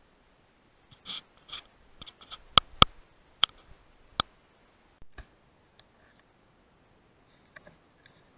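A scatter of sharp clicks and light knocks, the loudest three between about two and a half and four seconds in, followed by a few faint ticks.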